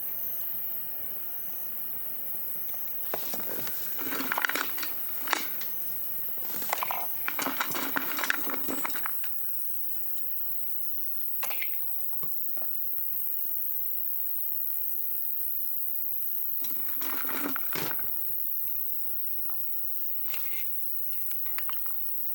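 Firewood and kindling being handled at a bonfire: bursts of clattering and crackling in three clusters, with single clicks between. A faint high chirp repeats about once a second throughout.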